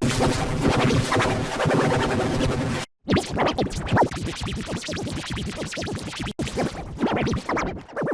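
Electronic remix music made of chopped, stuttering samples with record-scratch effects. It cuts out abruptly about three seconds in, then comes back in choppy fragments, with another brief cut-out around six seconds.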